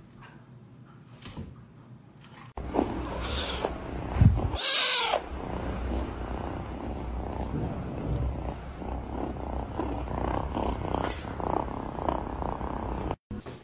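A black-and-white kitten purring loudly and steadily close to the microphone as it is stroked, starting abruptly about two and a half seconds in. A short call, likely a meow, cuts through the purring about two seconds after it starts.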